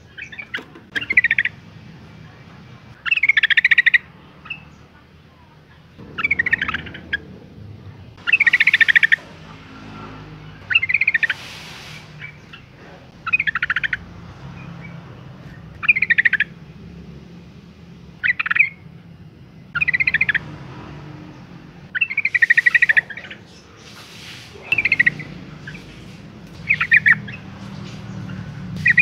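Female yellow-vented bulbul calling to attract a male: short, rapid chattering phrases repeated about once every two seconds.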